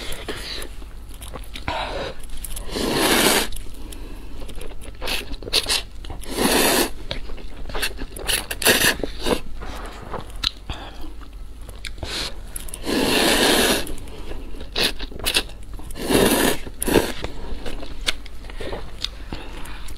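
Close-miked eating of instant cup noodles: several long slurps of about a second each, with chewing and small wet mouth clicks between them.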